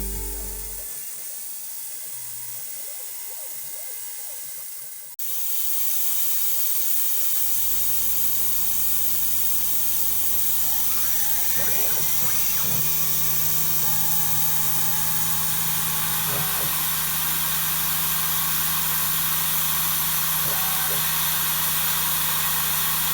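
DIY CNC milling machine running, its spindle giving a steady, loud whine as it cuts aluminium. It starts abruptly about five seconds in, after music fades out, with a few brief rising squeals a few seconds later.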